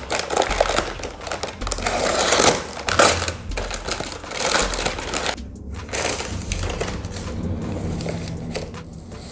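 Brown paper mailer bag crinkling and tearing as it is slit open with a box cutter and the packed box is pulled out, dense crackling rustles that thin out about halfway.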